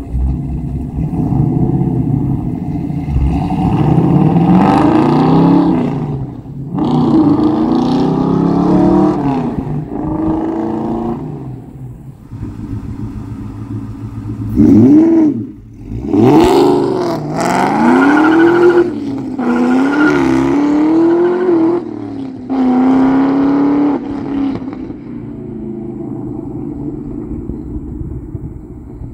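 2003 Mustang Cobra's supercharged 4.6-litre V8 running through a Bassani catback exhaust with long-tube headers and an X-pipe, revving up and down in several pulls as the car drives and accelerates, with brief lifts off the throttle between them and the sharpest climb about halfway. It settles to a lower, steady exhaust note over the last few seconds.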